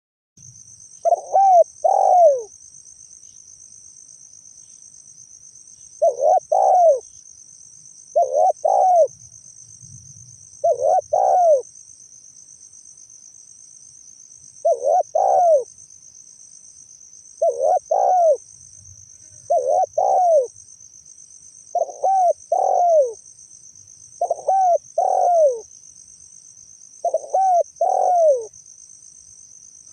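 Spotted dove (tekukur) calling: about ten short phrases of two or three low, down-slurred coos, repeated every two to three seconds. This is its advertising call, used as a lure to draw other doves in. A steady high insect trill runs underneath.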